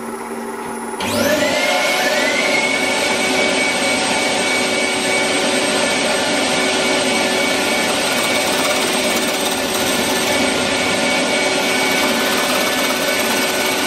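A wood lathe runs with a low hum. About a second in its whine rises and levels off as the speed is turned up. A gouge then cuts the spinning ironbark hollow form with a loud, steady hiss.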